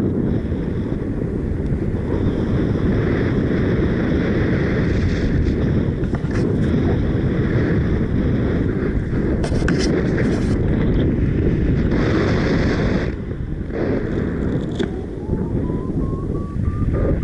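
Strong, gusty wind rushing over the microphone in flight: a loud, dense rumble that eases briefly about two-thirds of the way through.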